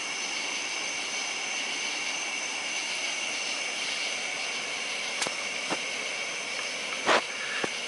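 Propane fire pit burner hissing steadily as its gas flame burns, under a steady high-pitched buzz. A few faint sharp clicks sound in the second half.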